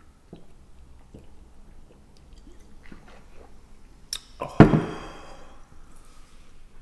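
Quiet swallowing sounds as a man drinks soda from a glass bottle, then a loud knock as the glass bottle is set down on the wooden table about four and a half seconds in.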